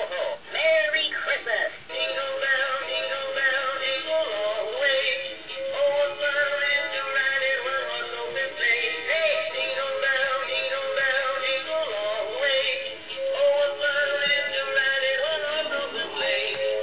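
Music with a singing voice, the melody moving in long held notes.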